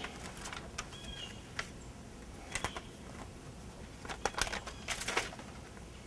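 Self-adhesive window flashing tape being pressed and smoothed flat by hand onto the wood of a window opening, giving scattered soft crackles and clicks, busiest about four to five seconds in. A few short bird chirps sound in the background.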